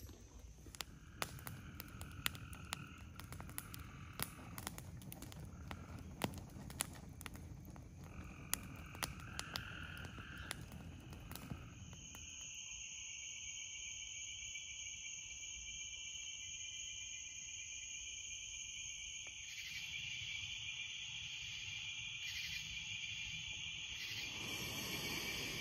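Evening chorus of frogs calling, with scattered sharp clicks and pops through the first half. About halfway in, a steady, continuous high trilling takes over and holds to the end.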